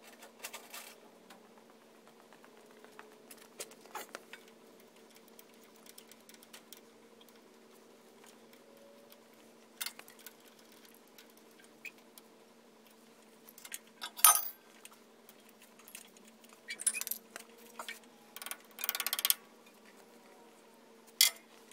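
Scattered light metallic clinks and handling noises from metal parts being worked on, the sharpest about two-thirds through and several short rattles in the last third, over a faint steady hum.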